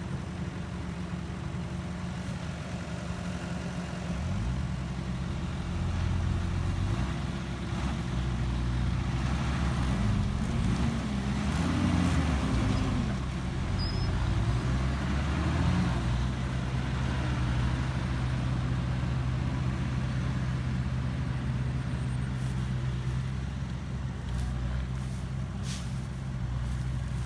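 Heavy diesel engine of a truck or excavator running. It picks up about four seconds in and revs up and down for several seconds under load, then settles to a steady run.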